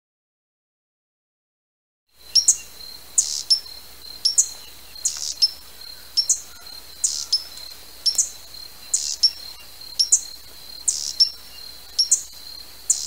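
Hummingbird chip calls: sharp, high chirps, mostly in pairs about once a second, over a steady thin high-pitched whine. They begin about two seconds in, after silence.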